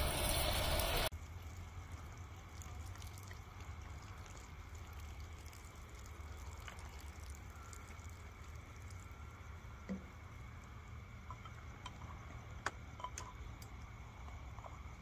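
Pan of curry simmering: faint scattered bubbling pops and ticks over a low steady hum. A louder hissing sound in the first second cuts off suddenly.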